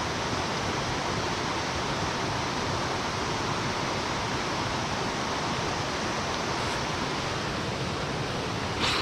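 Steady rushing of flowing stream water, an even hiss with no break. A short sharp sound stands out just before the end.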